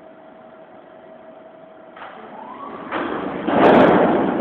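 Rotary railcar dumper turning a loaded car over: a steady machinery hum, then about halfway through a short rising whine and a swelling rush as the load spills out, loudest near the end.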